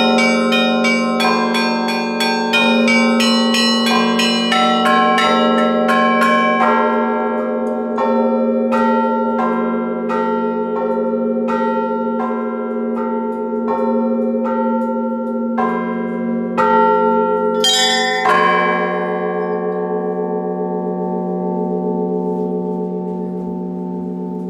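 Russian Orthodox church bells rung by hand. Quick strikes on the smaller bells over a steady low ringing slow to about one strike a second. A last quick flurry comes about two-thirds of the way through, and then the bells are left to ring out and slowly fade, closing the peal.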